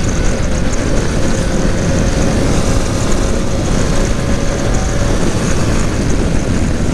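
BMW G 650 GS single-cylinder motorcycle ridden at speed: steady rush of wind and road noise over the engine, with a faint steady tone for the first few seconds.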